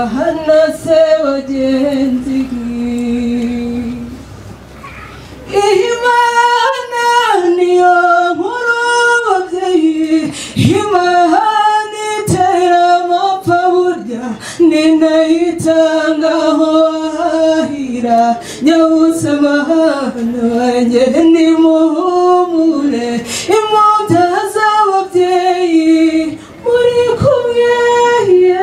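A young woman singing solo into a handheld microphone in long held phrases, with no instruments heard beneath her voice. She breaks off for about a second and a half about four seconds in, then carries on.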